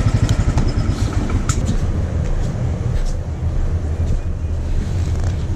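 Royal Enfield Thunderbird 500's single-cylinder engine idling, with an even beat of firing strokes for about the first second, then a steadier low rumble.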